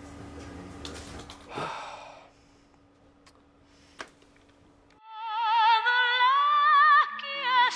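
Operatic singing with a wide vibrato starts about five seconds in and is the loudest sound. Before it there is only quiet room tone with a few light clicks.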